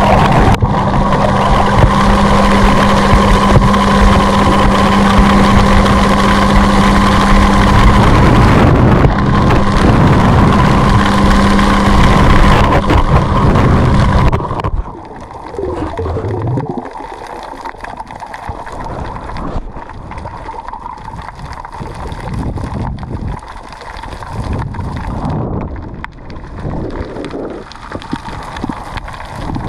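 Heard underwater, a loud steady engine drone at a fixed low pitch, typical of a boat motor carrying through the water. About halfway through it cuts off abruptly, leaving much quieter, uneven water noise.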